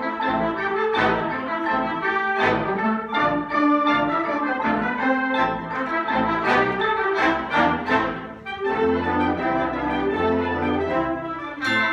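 School concert band playing: woodwinds, brass and piano together, with frequent accented notes. About eight and a half seconds in the music thins briefly, then long low notes are held underneath.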